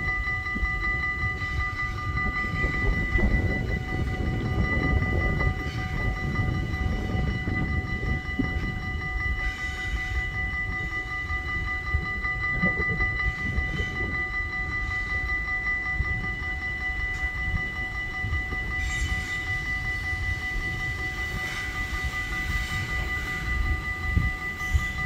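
Train running at a station platform: a low rumble under a steady high whine of several held tones that stay at one pitch.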